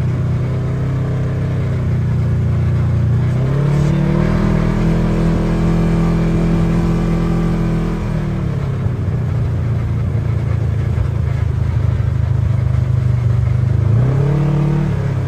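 Side-by-side UTV engine running under way, its pitch rising about three and a half seconds in, holding higher for several seconds, then easing back, and rising again near the end.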